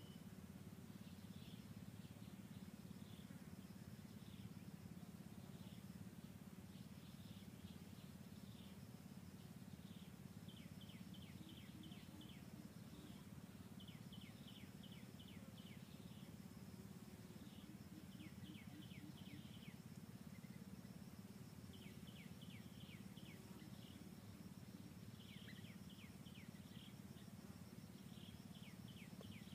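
Faint outdoor ambience: a steady high insect buzz, with bursts of quick high chirps every second or two over a low hum.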